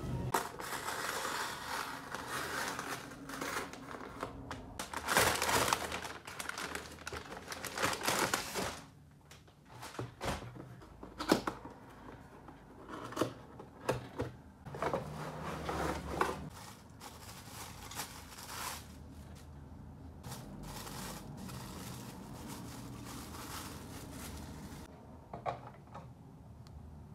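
Handling sounds from unboxing: a cardboard box is opened and its packaging crinkled, with irregular rustling bursts and a few sharp knocks. The bowls of a double pet-bowl set are then fitted onto their plastic stand, with only an occasional click.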